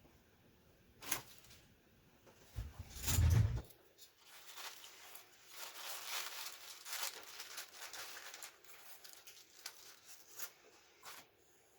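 Commodore 64 keyboard parts being handled during reassembly: light plastic clicks and ticks, a dull thump about three seconds in, and several seconds of soft rustling and scraping.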